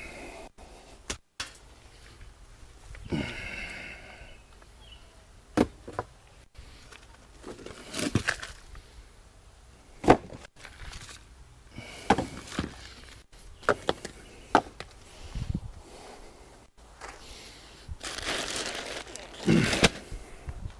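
Scattered knocks, clicks and scraping from hand work spreading black bagged mulch, with a longer rustling stretch near the end.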